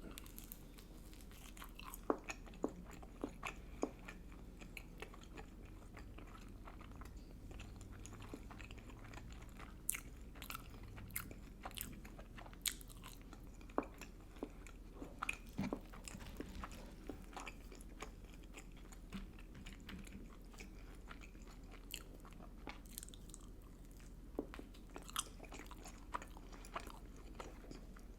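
A person chewing and biting food, with irregular crisp crunches and mouth clicks.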